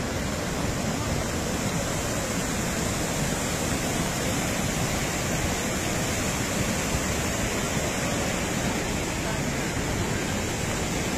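Muddy floodwater torrent rushing past in a steady, unbroken rush.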